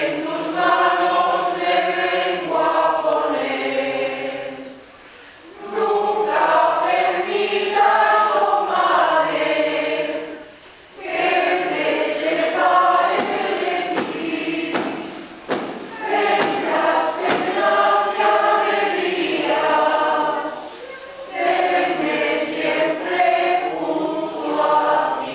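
Church choir singing a hymn in long, held phrases, with short breaths between phrases.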